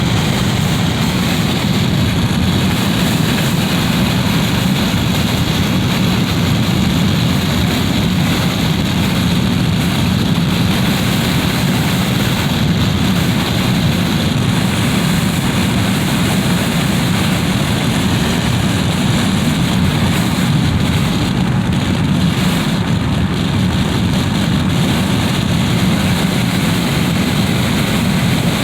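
Wind blowing through a window: a steady, loud rushing with a deep rumble.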